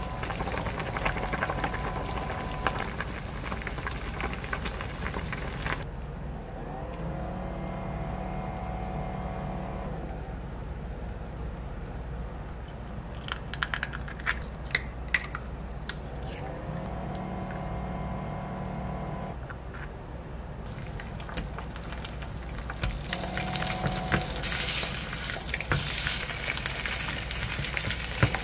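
Cooking sounds: a pot of stew bubbling at a boil, then eggs and slices of luncheon meat frying in oil on a nonstick griddle pan, the sizzling and crackling growing louder in the last few seconds.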